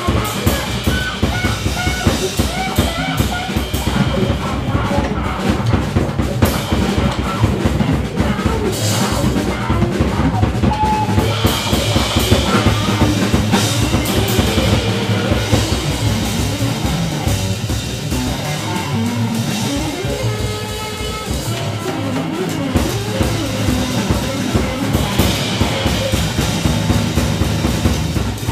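Live trio of drum kit, double bass and guitar playing together, with dense, busy drumming throughout.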